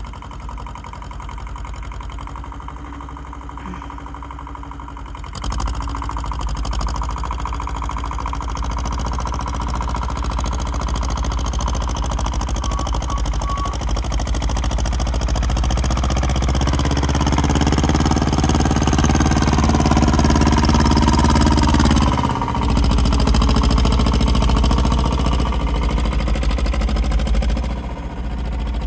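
Tractor engine working as it pushes snow with a plow blade. It grows louder about five seconds in and keeps building, with a brief drop and shift in pitch about two-thirds of the way through.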